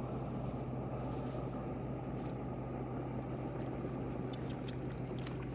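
Engine of a rice-harvesting tractor running steadily, a constant drone with no change in speed. A few light clicks come about four seconds in.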